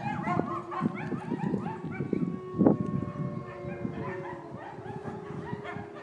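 A pack of wolves howling in chorus: many short yipping calls overlap with long howls, and one loud short call comes about two and a half seconds in. In the second half a few long, steady howls hold on.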